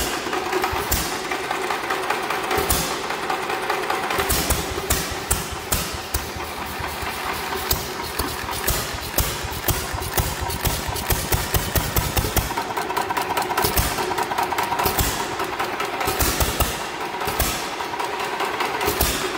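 Antique hit-and-miss stationary engine running on its own, its valve gear clacking: bursts of rapid firing strokes alternate with spells of coasting on the flywheels. It still fires irregularly and runs fast, with the governor not yet set right.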